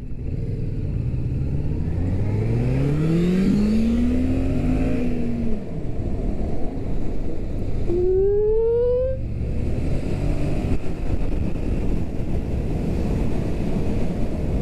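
Motorcycle engine accelerating: its pitch climbs for a couple of seconds and eases off, then a second, quicker rising rev comes about eight seconds in. Steady wind and road rush underneath.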